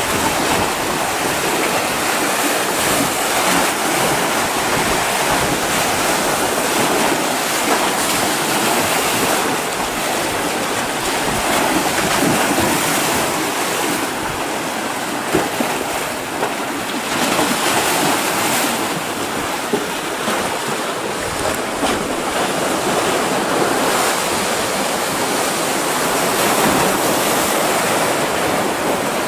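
Sea waves washing in and splashing among shoreline boulders: a steady rushing surf that swells and eases.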